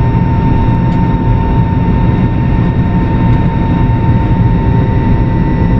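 Airbus A320 jet engines running as heard inside the passenger cabin while the airliner moves slowly on the ground: a steady low rumble with a constant high whine.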